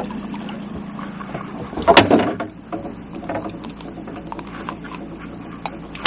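Knocks and taps in a small fishing boat over a steady low hum: one loud thump about two seconds in, then lighter scattered clicks and taps.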